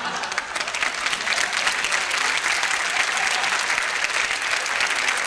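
Studio audience applauding steadily: a dense, even patter of many hands clapping.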